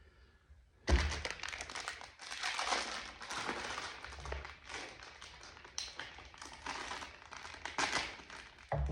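Crinkling and rustling with many light taps and clicks, starting suddenly about a second in: hands handling the new chainsaw bar while fitting it to the saw.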